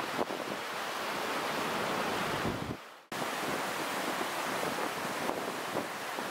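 River in flood rushing and churning over a weir and rocks: a steady, dense whitewater noise. It fades away just before three seconds in and comes back suddenly at the same level.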